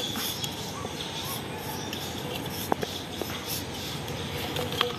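Fingers rubbing oil around the inside of a steel cake tin, with a few light ticks against the metal, over a steady background hiss.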